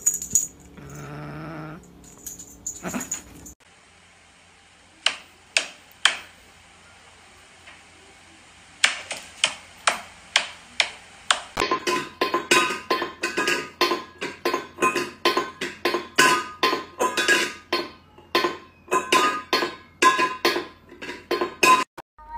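A metal food bowl being knocked about on a tiled floor by a cat, a fast run of clanks that each ring briefly, starting about halfway through. Before that come a few scattered clicks and knocks.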